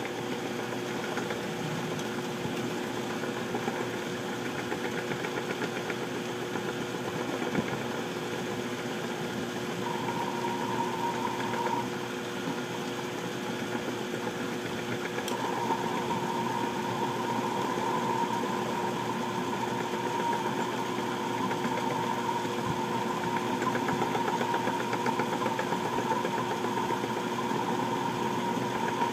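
Small benchtop metal lathe running steadily with a constant motor and gear hum while steel is turned to a taper. A higher whine comes in briefly about ten seconds in, and again from about halfway through.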